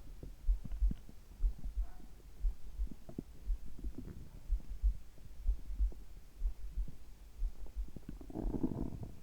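Human heartbeat, low paired thumps about once a second, with stomach gurgles over it. The loudest gurgle comes near the end.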